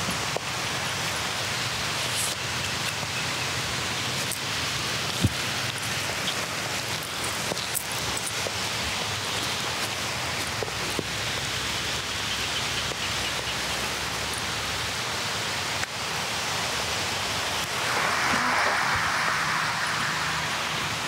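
Steady hiss of falling rain, with scattered light taps and drips. The hiss grows brighter and a little louder for a couple of seconds near the end.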